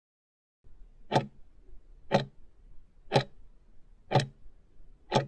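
Clock-tick sound effect of a countdown timer: five sharp ticks, one a second, starting about a second in.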